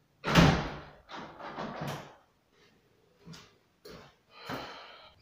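Casement window sash swung shut with a loud thud a moment in, followed by rattling and a few sharp clicks from the handle and latch.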